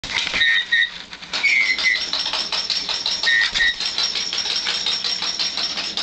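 Rapid clicking and rattling, about seven clicks a second, as a Meyer's parrot shakes and beats a stuffed toy bird against its cage top. Three pairs of short high chirps come in the first four seconds.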